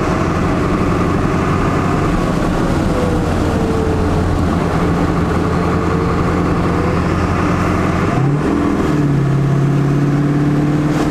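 Ford 7.3 Powerstroke diesel V8 with Riffraff Diesel tuning, heard from inside the cab while driving, running at a steady cruise. About eight seconds in the engine note changes and settles at a lower steady pitch.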